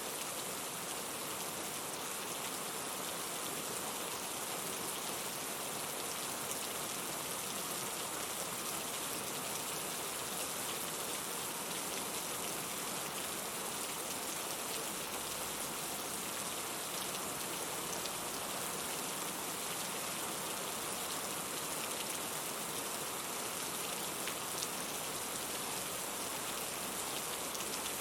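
Steady rainfall: an even hiss of rain with faint scattered drop ticks, constant in level.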